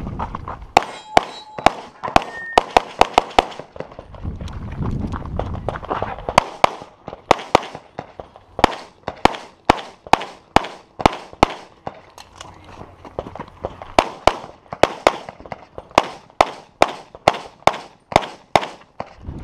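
Open-division competition pistol fired many times in quick pairs and strings, with two breaks of about two seconds while the shooter moves between positions.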